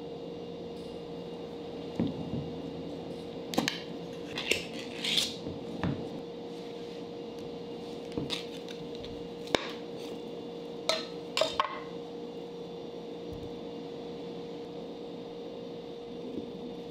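A SPAM tin's pull-ring lid being opened by hand: a run of sharp metal clicks and short tearing scrapes over several seconds, then a few more clicks and knocks as the opened tin is handled, all over a steady hum.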